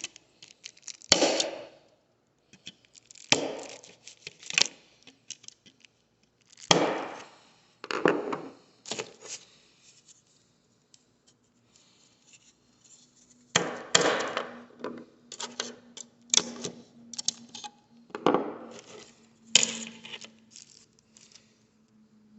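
Irregular sharp clicks and knocks of hard plastic being handled as the small plastic locking pegs are worked free from the smoke detector's parts. A faint steady hum joins about halfway through.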